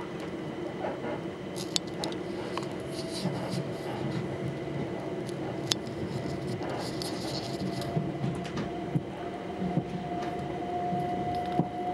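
Inside a Southern Class 377 electric multiple unit running along the line: steady rumble of the wheels on the track, a few sharp clicks over rail joints, and a steady whine that grows stronger near the end.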